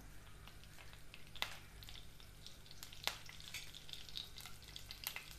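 Curry leaves sizzling faintly in hot ghee in a non-stick kadhai, with a few sharp crackling pops, as they are stirred.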